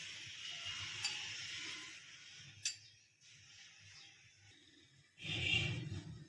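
A metal spoon scraping and clinking against small glass dessert cups while biscuit crumbs are spooned in, with sharp clinks about one second and nearly three seconds in. Near the end there is a louder scrape lasting about a second.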